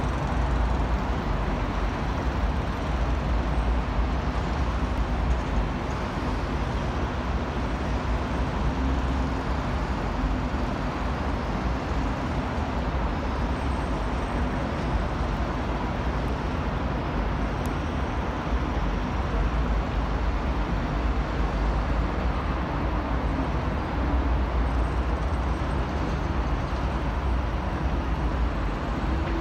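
Distant city road traffic: a steady, unbroken wash of noise with a deep low rumble, heard from high above the streets.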